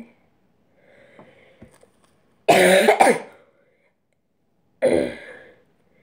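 A girl coughing twice, loud and close: one cough about two and a half seconds in and a shorter one about five seconds in. They are the coughs of someone who is sick.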